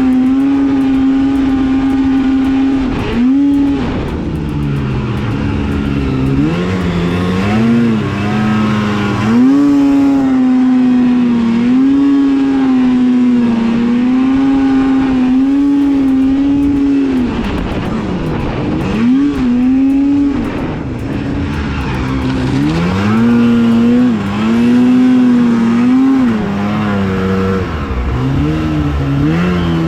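Snowmobile engine running hard under throttle, holding a high steady pitch for several seconds at a time, then dropping off and climbing again as the throttle is eased and reapplied, several times over.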